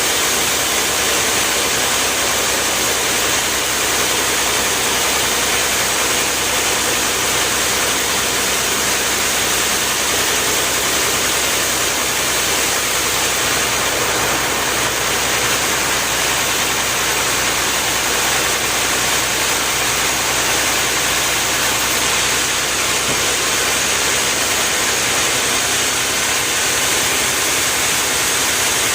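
A motor running steadily and loudly, with a strong hiss over it and no change in speed.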